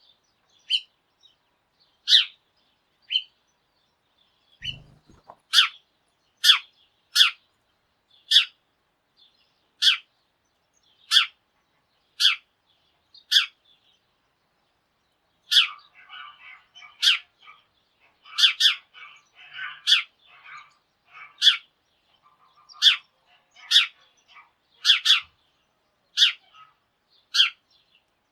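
Sparrows chirping: loud single chirps repeating about once a second, with a busier, softer twittering chatter joining about halfway through.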